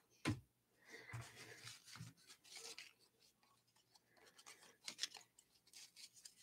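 Faint rustling and sliding of baseball trading cards being handled and shuffled by hand, with a light tap right at the start and a couple of soft clicks about five seconds in.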